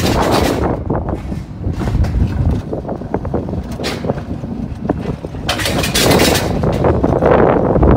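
Wiegand alpine coaster sled running down its steel rails: a continuous rumble of the wheels on the track, with gusts of wind buffeting the microphone, the strongest about six seconds in.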